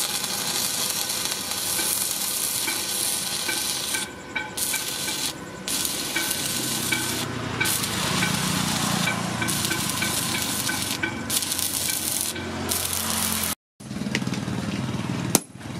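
Stick (arc) welding on steel: the electrode's arc crackles steadily, breaking off briefly several times and restriking. It cuts out abruptly near the end, and a single sharp metal knock follows.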